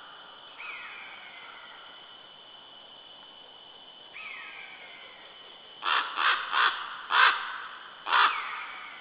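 A bird's harsh calls: five loud, rasping caws in quick succession in the second half, the last after a short pause, preceded by two fainter falling calls. A faint steady high-pitched whine runs underneath.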